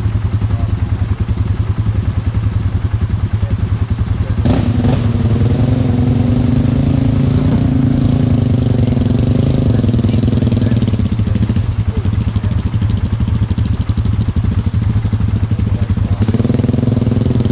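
Sport quad (ATV) engine running with a steady rapid pulse. It gets louder and higher under throttle about four seconds in for several seconds, and again near the end.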